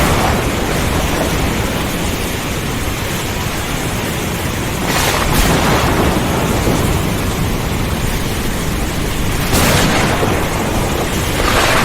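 Thunderstorm: steady rain with thunder rumbling low underneath, and three sudden swells of louder noise, about five seconds in, near ten seconds and near the end.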